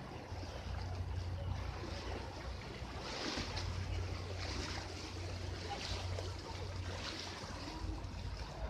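Wind rumbling and buffeting on a phone microphone over a washing noise of river water, with a few brief hissy swells along the way.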